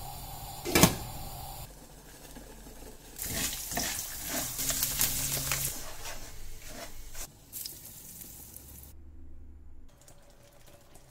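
Kitchen cooking sounds: one sharp clink at the steel idli steamer, then a spatula scraping and stirring rava roasting in a pan for several seconds, then a spoon stirring thick curry.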